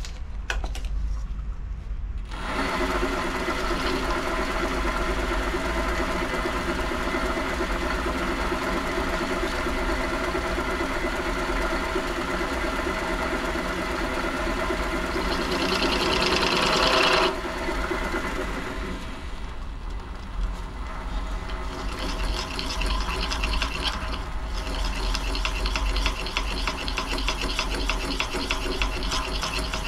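WM210V bench lathe starting up about two seconds in and running steadily with a steady machine hum. Over it comes the scraping rasp of a hand-held tool worked against the spinning workpiece: loudest for a moment a little past the middle, then lighter repeated scraping near the end.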